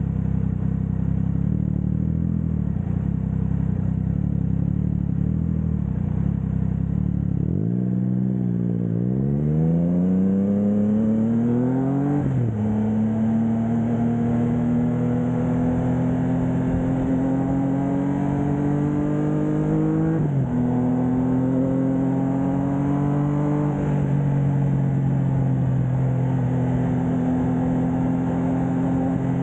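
Triumph Trident 660's three-cylinder engine through a Blackwidow 200mm aftermarket exhaust. It runs steadily at low revs, then about a quarter of the way in it accelerates with a rising pitch and drops sharply at an upshift. It keeps pulling through two shorter upshifts before holding a steady cruise.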